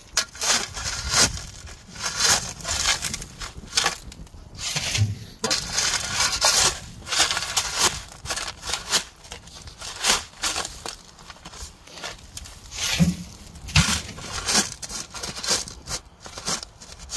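Gravel crunching and scraping in quick, irregular strokes.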